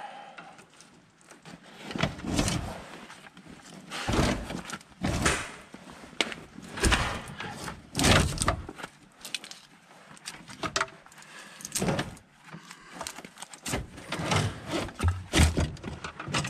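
Irregular clunks, rattles and scrapes of snowplow control cables and their hardware being pulled and worked loose through a pickup's cab floor, with several sharp knocks among quieter handling noise.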